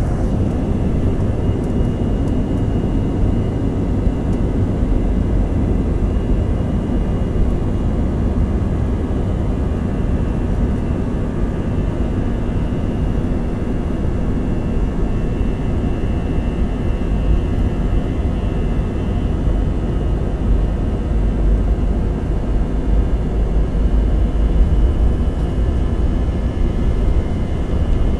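Airbus A321 jet engines heard from inside the cabin over the wing during the takeoff roll: a steady, loud rush of engine noise with a faint high whine, and a low rumble from the runway that builds in the last several seconds as the jet gathers speed.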